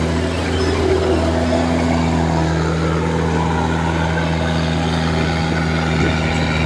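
Kubota DC-105X rice combine harvester running steadily while it cuts and threshes rice, a constant engine note with a steady low hum.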